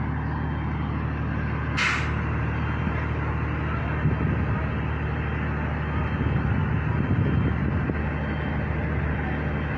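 Heavy diesel engine, likely the truck-mounted crane's, running steadily. A short, sharp hiss of released air comes about two seconds in, and the rumble grows a little louder for a while near the middle.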